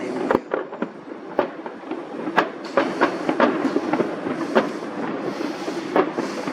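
Fireworks going off: a fast, irregular run of sharp bangs, several a second, with crackling between them.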